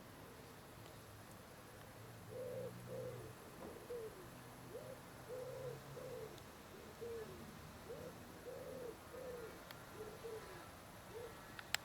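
A pigeon cooing: a long series of soft, low, arched notes, about one or two a second, starting about two seconds in. A single sharp click near the end.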